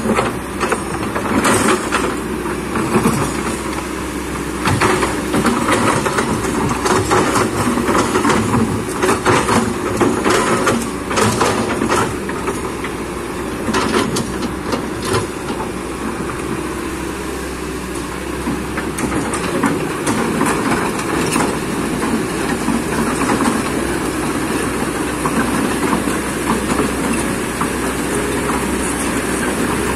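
Kobelco excavator's diesel engine running steadily under load, with frequent clanks and knocks from the working machine through roughly the first half that thin out later on.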